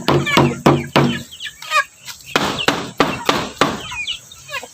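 Hollow bamboo tube being knocked in quick, even strokes, about three a second, in two runs with a pause between, to call chickens to feed. Chickens cluck between the knocks as they gather.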